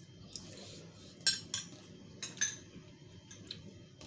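Metal spoons clinking against porcelain bowls, a handful of short, sharp clinks spread through, over a faint steady room background.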